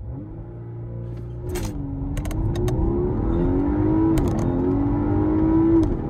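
Car engine accelerating hard: its note rises, drops back about a second and a half in and again about four seconds in, and climbs again, growing louder. Several sharp cracks come near those drops.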